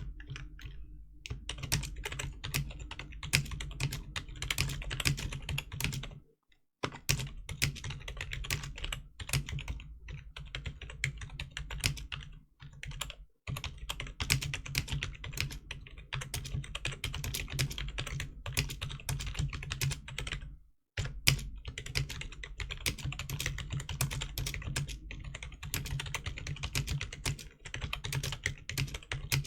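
Fast typing on the Rii RK100's rubber-dome membrane keys: a dense, continuous patter of keystrokes that breaks off briefly three times.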